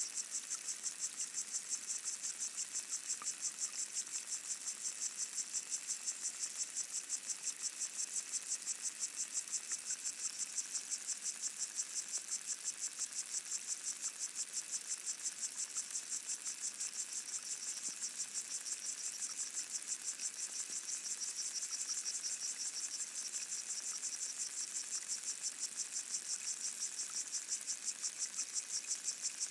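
A chorus of pygmy water boatmen (Micronecta) stridulating underwater, heard through a hydrophone as a steady, rapid, even pulsing, high-pitched, that never stops. A few faint ticks sound through it, which the recordist presumes come from pondweed (Potamogeton) giving off oxygen bubbles as it photosynthesises.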